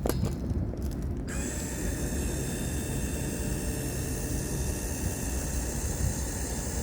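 A few clicks, then about a second in the electric gear motor of a camper van's outrigger stabiliser jack starts and runs steadily with a whine, driving the leg.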